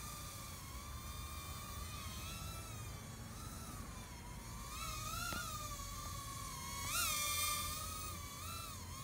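Cheerson CX-10 nano quadcopter's tiny coreless motors and propellers whining in flight: a high-pitched tone whose pitch wavers up and down as the throttle changes, with quick rises about five, seven and eight and a half seconds in.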